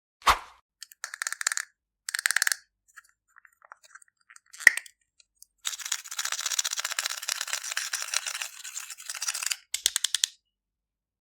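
Slime and cosmetics being worked by hand: short bursts of crackling and crunching separated by sudden silences, with a sharp knock just after the start and a longer stretch of crackling in the second half.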